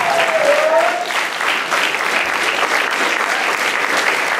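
Audience applauding steadily after a speech, with many hands clapping at once.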